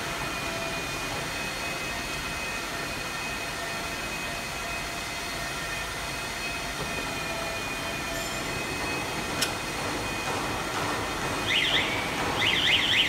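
Steady drone and high whine of packing machinery running, with one sharp click about nine seconds in and a burst of quick, repeated high squeaks near the end.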